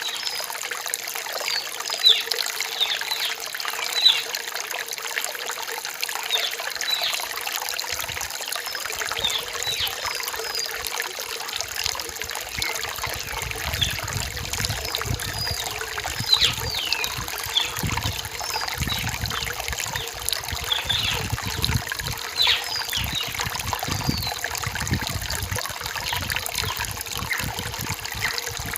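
Rain-forest stream trickling and babbling over rocks, with birds giving many short, falling chirps throughout. A low, uneven rumble comes and goes from about a third of the way in.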